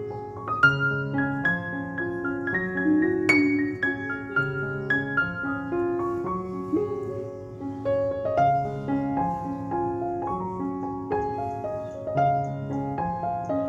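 Background piano music: a melody of single notes over held low notes.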